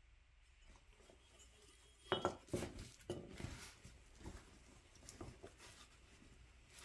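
Metallic clanking and clinking: a sharp clank about two seconds in, then several lighter clinks and knocks, as the Bilstein shock's dividing piston is blown out of the shock body and the metal parts are handled.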